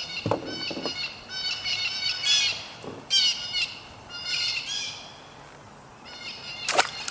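Birds calling in repeated series of quick, high-pitched chirps, with a few soft knocks and one sharp click near the end.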